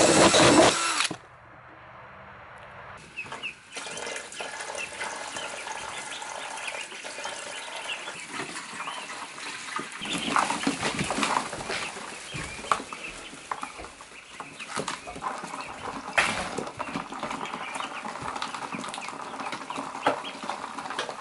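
A power drill bores through a plastic lid and stops about a second in. From about three seconds in, a brood of Khaki Campbell ducklings peeps continuously in many short high calls, with an occasional knock.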